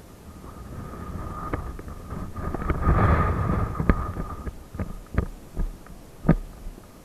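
Wind buffeting the microphone in a low rumble that swells to its strongest about three seconds in and then eases, with a faint steady whine and a few sharp knocks near the end.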